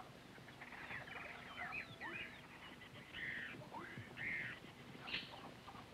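Faint tropical-forest wildlife calls: scattered short chirps and squeaky, chattering calls, a little louder around the middle.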